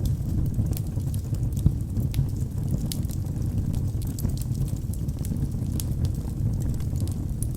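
Wood fire burning in a fireplace: a steady low rumble of flames with scattered, irregular sharp crackles and pops.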